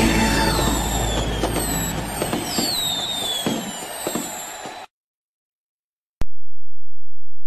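Fireworks: falling whistles and crackling pops, fading away and cutting off suddenly about five seconds in. A single click follows about a second later.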